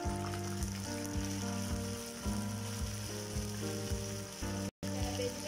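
Curry leaves sizzling as they hit hot coconut oil with spluttering mustard seeds in a clay pot: a steady frying hiss. Soft background music plays underneath.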